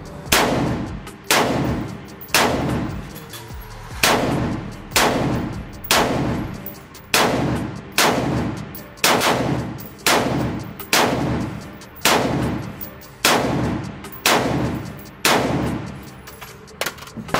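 Slow, steady semi-automatic fire from a Foxtrot Mike FM-15 Gen 2 buffer-less, direct-impingement AR-style rifle, shot unsuppressed: about fifteen shots, roughly one a second with a short gap about three seconds in. Each shot rings out in the echo of an indoor range.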